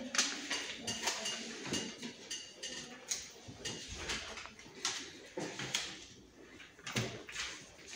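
Classroom desk handling noise: paper rustling and sticky notes being handled, with many short irregular clicks and taps of pencils and paper on the desks.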